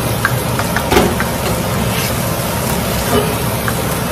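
Wooden spatula stirring and tossing shrimp in curry sauce in a pan over a gas flame, with a knock about a second in and a few light ticks, over a steady rushing background noise.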